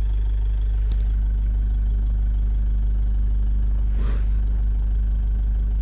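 Pickup truck engine idling steadily, a low hum heard from inside the cab, with a brief rustle about four seconds in.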